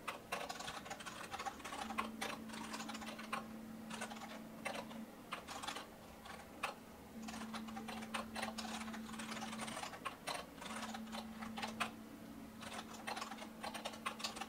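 Rapid typing on a computer keyboard: a dense, uneven run of keystroke clicks, with a low steady hum that comes and goes.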